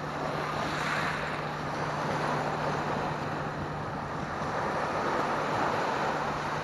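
Small surf washing up a sandy beach, swelling and easing, with wind buffeting the microphone and a faint steady low hum.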